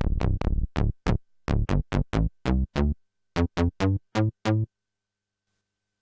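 Steinberg Prologue software synthesizer playing its Pulse Width Mod Bass preset: a quick staccato bass line of short plucked notes, each bright at the start and quickly dulling. There is a brief pause near the middle, and the line stops well before the end.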